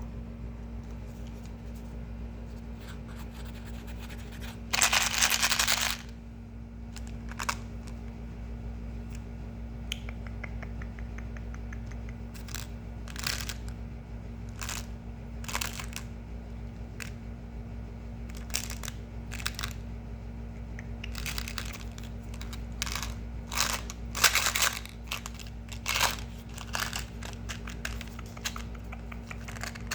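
Close-miked ASMR handling of small objects: a loud burst of rustling noise lasting about a second near the start, then scattered short clicks, taps and scratches. A steady low hum runs underneath.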